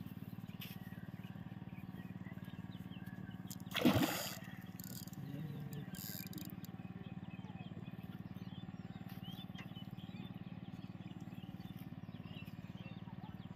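Hooked mrigal carp thrashing at the water surface: one loud splash about four seconds in, then lighter splashing for a couple of seconds, over a steady low hum.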